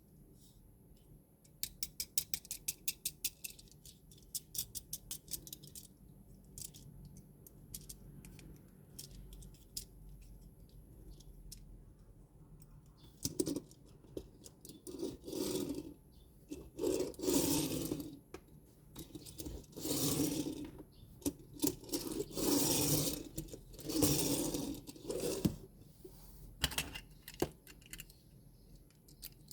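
Hands handling plastic toys and packaging: a quick run of small clicks, then a series of separate scraping, rustling strokes.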